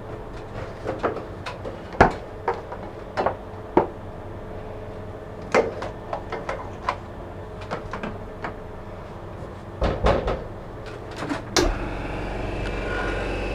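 Irregular knocks, clunks and scrapes of a cabinet being climbed onto and handled, the loudest knocks about two seconds in and around ten to twelve seconds in. Near the end a steady hum with hiss starts and keeps going.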